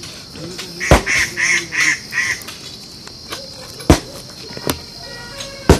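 Hand digging tools striking rock: three sharp blows, about a second in, near the four-second mark and near the end, with fainter knocks between. Just after the first blow comes a run of four short honking calls.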